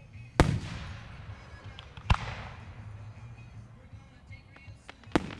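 Three aerial firework shells bursting with sharp bangs, the first two close together and the third near the end, each trailing off in an echo.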